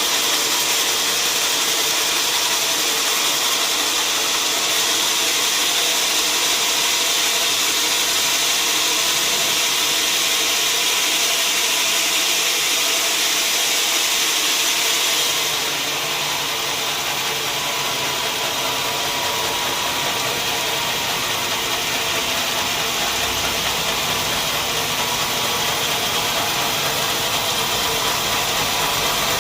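Sawmill machinery running steadily with a continuous high-pitched hiss of sawing. About halfway through, the high part eases and a lower rumble takes over.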